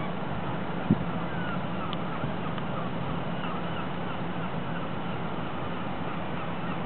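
Steady outdoor background noise with many short bird chirps scattered through it, and one brief knock about a second in.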